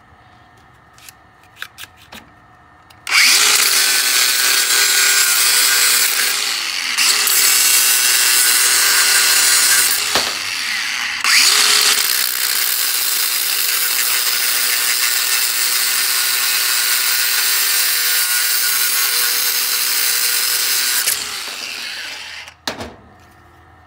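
A few light clicks, then about three seconds in a DeWalt 60-volt cordless angle grinder starts and cuts through a caulk gun's frame. It runs loud and steady for about eighteen seconds, easing off twice briefly, then spins down near the end.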